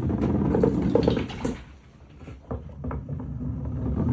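Water rushing down a wooden somen-noodle slide, with marbles rolling and clicking along the channel. The flow dips about halfway, then picks up again.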